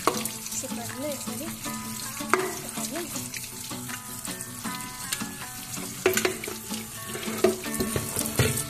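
Tap water running onto boiled noodles in a perforated aluminium steamer tray in a steel sink, splashing through as the noodles are rinsed. A few sharp knocks break in through it, the loudest near the end.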